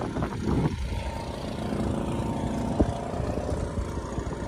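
Dinghy's small outboard motor running steadily, a constant low rumble with a faint engine hum above it.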